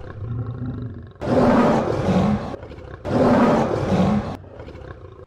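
A lion roaring twice, each roar lasting about a second, after a quieter low rumble in the first second.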